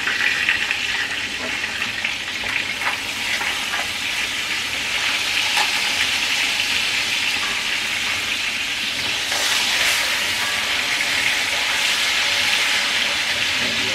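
Whole chicken sizzling steadily as it browns in oil and butter in a pot on a ceramic hob. A few faint knocks come from the chicken being handled and turned over in the pot.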